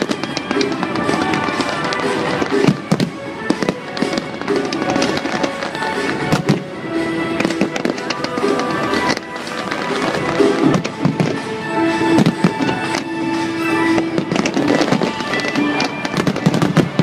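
Fireworks display: many shells bursting in quick succession, a dense run of bangs and crackles, with music playing alongside.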